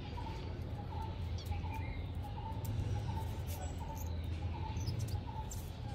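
A bird chirping over and over, short high chirps about twice a second, over a steady low hum.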